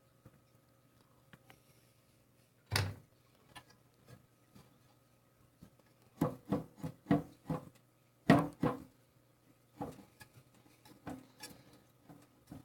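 Knocks, clatter and rubbing from hands working the metal parts of an old furnace blower just after its bearings were oiled. A single knock comes about three seconds in, then several quick runs of clatter in the second half, over a faint steady hum.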